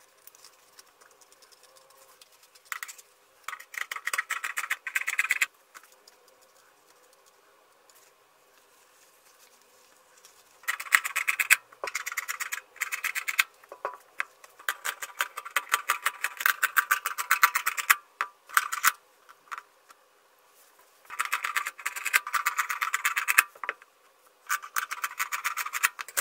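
Scissors cutting through thin underwear fabric: about five runs of rapid, crisp snipping, each lasting a few seconds, with short quiet gaps between.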